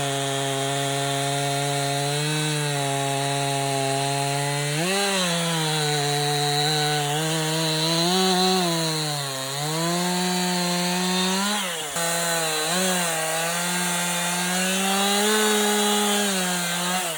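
Stock Stihl MS 261 C two-stroke chainsaw running at high revs, its pitch dipping and recovering several times.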